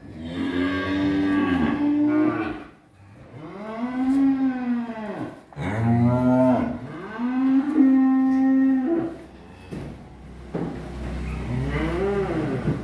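Cattle mooing: about five long calls in a row, each rising and then falling in pitch, with a low rumble under the last one near the end.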